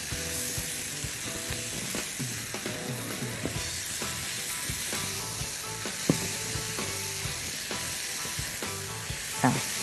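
Sliced mushrooms, onions and peppers sizzling steadily in oil in a pan, with small clicks of the utensil as they are stirred.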